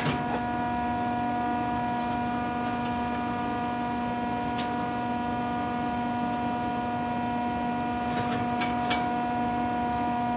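Steady electrical hum, a buzz with several even overtones, with a few light clicks of metal being handled about halfway through and twice more near the end.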